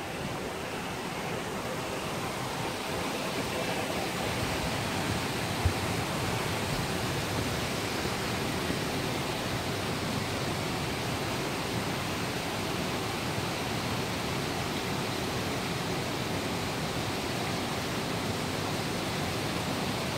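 Steady rushing, bubbling water noise from aerated concrete fish-rearing tanks, with one small click about six seconds in.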